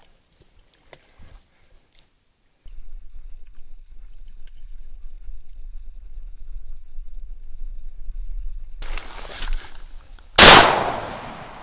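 A single loud shotgun shot near the end, dying away over about a second. Before it there is a low rumble, and a rustling noise rises just before the shot.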